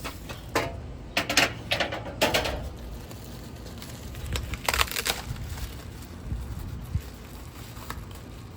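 Crinkling and rustling of packaging being handled in several short bursts, mostly in the first two and a half seconds and again around five seconds in, as a part of the steel fire pit kit is unpacked.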